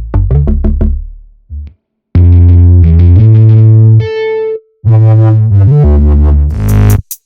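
Synthesizer preset demo: a run of short plucked notes, then loud sustained chords with a heavy bass line, a brief single held tone about four seconds in, and more chords, cut off just before the end by sharp drum-machine-like hits.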